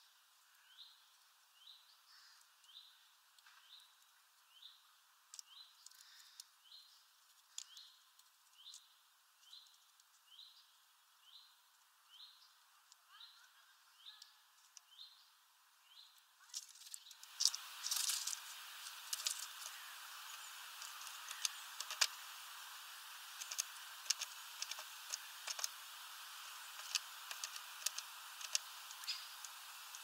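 A small songbird repeats a short rising call note over and over, about one and a half times a second. About two-thirds of the way in, a louder steady hiss full of sharp ticks sets in and covers the calls.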